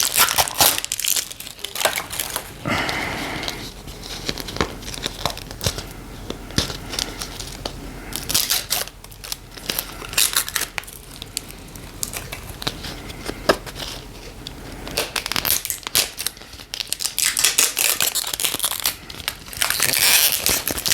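Plastic packaging of a small doll accessory pack being pulled and torn open by hand, crinkling and crackling irregularly; the plastic is not tearing along its intended opening line.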